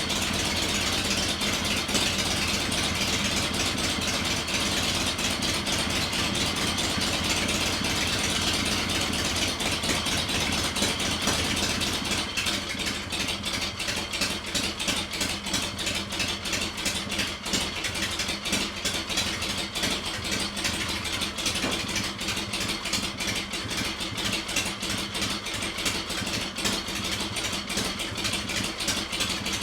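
Stroker Harley-Davidson Shovelhead V-twin idling after a kickstart. About twelve seconds in its sound turns choppier and slightly quieter, with a more uneven beat.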